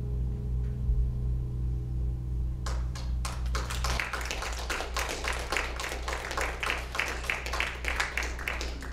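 A song's accompaniment ends on a held chord, and a small congregation applauds for about six seconds, starting a few seconds in.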